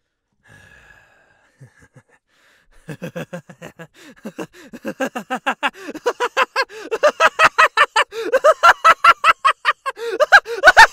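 A person's voice in a long run of quick, rhythmic breathy vocal pulses, about five a second, starting about three seconds in and growing louder.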